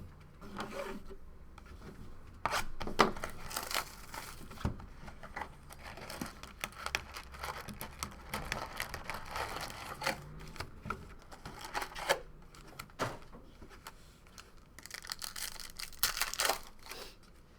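Trading-card box and pack wrappers being torn open: irregular crinkling and tearing of the wrapping, with a louder flurry about three seconds in and another near the end.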